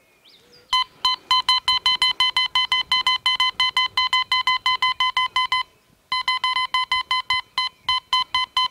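Teknetics Alpha metal detector sounding a rapid string of beeps at one steady pitch, about five or six a second, as a small metal piece is passed in front of its coil. The beeping breaks off for about half a second partway through, then resumes. It is the detector's audio signal that it has found the target, here at about 18 inches.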